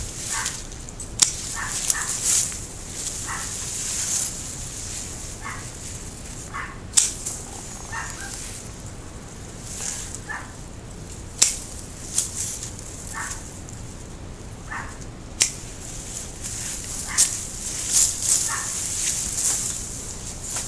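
Hand pruning shears snipping Japanese maple branches, a sharp click every few seconds, over the rustle of leaves and twigs being pushed aside. Short repeated calls, like a dog barking, come every second or two.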